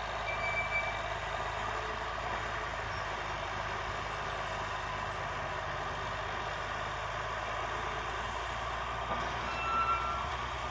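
Bucyrus crawler dragline's engine running steadily under load as the machine hoists and swings its bucket, with a brief high squeak near the start and another near the end.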